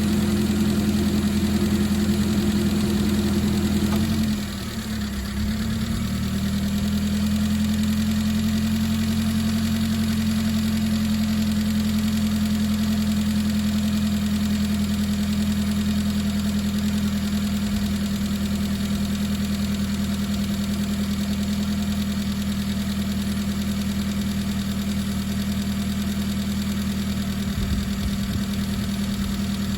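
Subaru Sambar TV2's 658 cc four-cylinder engine idling with a steady droning hum. About four seconds in the sound briefly dips and wavers, a higher tone drops out, and the steady drone resumes.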